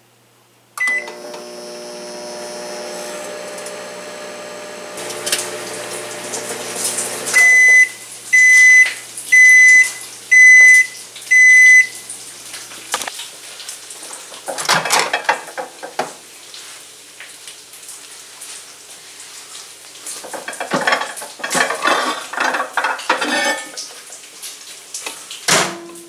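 Rival microwave oven: a keypad beep, then the oven runs with a steady hum for about six seconds and stops, followed by five loud beeps about a second apart marking the end of the cooking cycle. Later come knocks and clatter as the door is opened and the dishes inside are handled.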